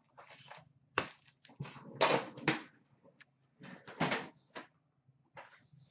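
Upper Deck card packs and their metal tin being handled on a glass counter: a sharp knock about a second in, then crinkly rustling of the packs' wrappers around two seconds and again around four seconds.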